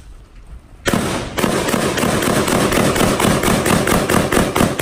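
Handgun fired rapidly at a range: a long, fast string of loud shots begins abruptly about a second in and keeps going without a break.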